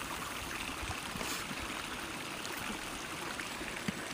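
Steady outdoor rushing noise, even and unbroken, with a few faint clicks.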